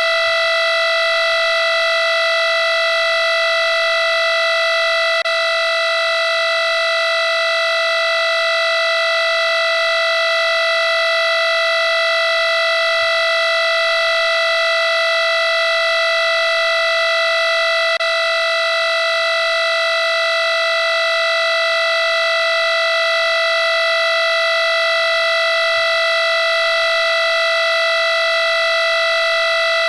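Electronic alarm clock tone sounding without a break: one loud, buzzy note that holds the same pitch throughout.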